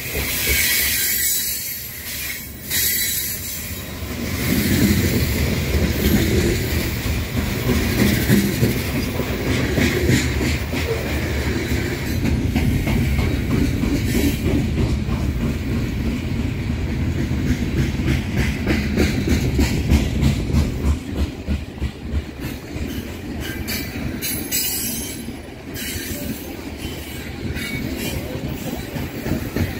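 BNSF freight train cars rolling past, wheels clattering rapidly over the rail joints above a heavy low rumble that swells about four seconds in.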